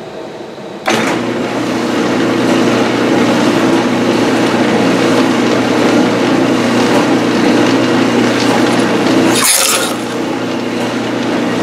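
Craftsman metal lathe switched on about a second in and running steadily, its motor and spindle drive giving a steady hum. Near the end there is a brief hissing scrape as the threading tool takes a light scratch pass on the work.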